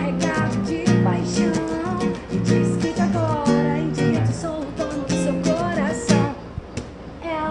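Music with guitar, a singing voice and a beat; it stops about six seconds in.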